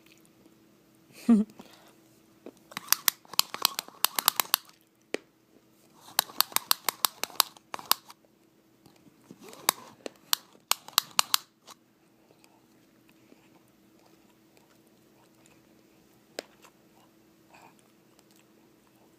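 Tape measure clicking in three bursts of rapid, sharp clicks, with a steady low hum underneath.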